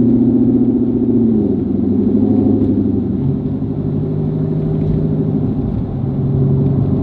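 Corvette V8 engine running while driving on a snowy road; its pitch steps down about a second in and again about three seconds in.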